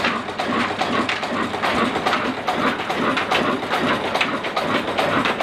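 Old Ruston Hornsby stationary diesel engine running steadily while driving a chakki flour mill, with a rapid, even mechanical clatter from its fuel pump and valve gear.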